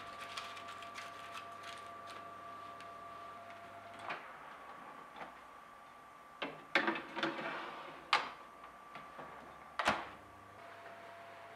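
Metal pie weights (tart stones) clicking softly as they are spread over foil in a tart pan. A baking tray then scrapes and clatters as it slides onto the oven's rails, and the Panasonic oven's door shuts with a sharp knock just before the end.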